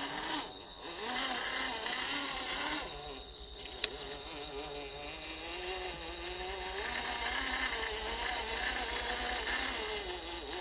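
Electric motor and gears of an MN99S RC crawler whining as it crawls along, the pitch wavering up and down with the throttle. A single sharp click about four seconds in.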